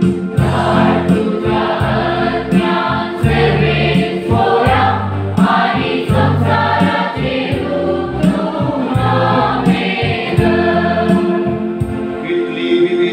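Church choir singing a hymn, accompanied by an electronic organ holding sustained bass notes.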